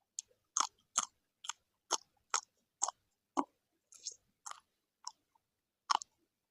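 A person chewing food close to the microphone: a string of short, sharp chewing smacks, about two a second.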